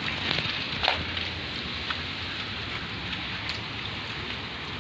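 Steady rain falling, with a few light knocks near the start.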